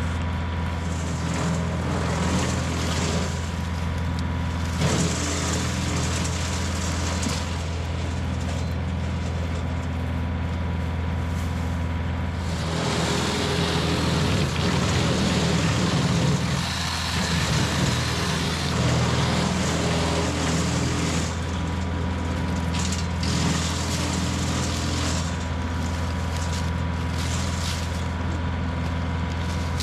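John Deere 2038R compact tractor's diesel engine running steadily at working speed, driving a PTO wood chipper. A louder, rougher stretch of wood being cut and chipped comes in about twelve seconds in and lasts about eight seconds.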